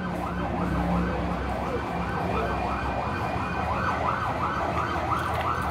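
A siren warbling rapidly, its pitch sweeping over and over about three times a second.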